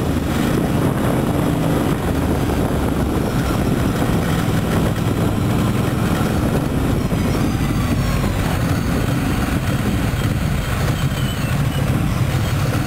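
Engines of a group of touring motorcycles riding slowly together at low revs, heard from one of the bikes, a steady drone whose pitch shifts a little.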